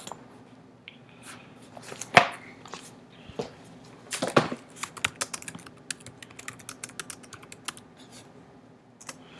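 Typing on a computer keyboard: a few louder single clicks, then a quick run of keystrokes as a search phrase is typed.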